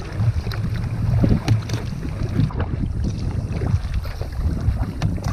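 Sea kayak paddle strokes splashing in choppy water, with wind rumbling on the microphone.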